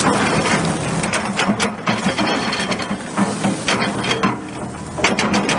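Mechanical clattering and rattling with repeated sharp knocks over a steady low engine hum.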